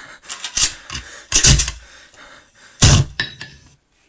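Several heavy thumps with scraping and knocking between them; the loudest come about one and a half and three seconds in. The sound cuts off suddenly just before the end.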